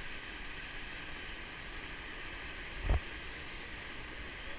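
Steady rushing hiss of a waterfall pouring into a pool, with one brief low thump about three seconds in.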